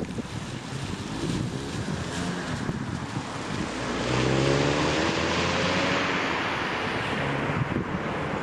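Stock 2017 VW Golf 7 GTI Facelift's 2.0-litre turbocharged four-cylinder engine revving up under acceleration about four seconds in, its pitch rising, then swelling into a broad rush of engine and road noise. Wind buffets the microphone throughout.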